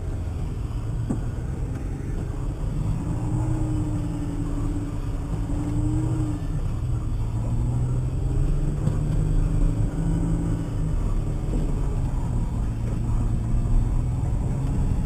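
Toyota Highlander's engine running under load, its pitch rising and falling repeatedly as the revs change, over a steady low rumble.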